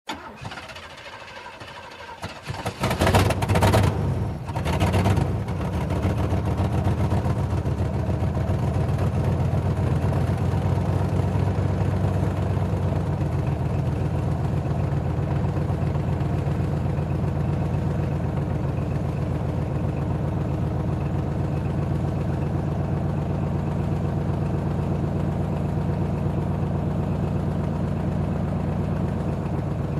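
Old car engine being cranked and catching about three seconds in, with a couple of brief revs, then settling into a steady idle.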